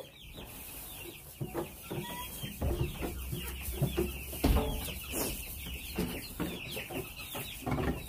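A flock of Cornish cross chicks peeping constantly, many short high chirps overlapping, with a few dull thumps mixed in.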